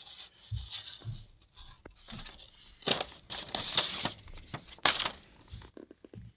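Paper rustling and crinkling as an old folded instruction pamphlet is handled, loudest about three and five seconds in.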